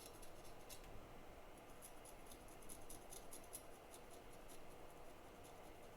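Faint scratching ticks of a small hand tool scraping at a chip, about five a second, mostly through the middle.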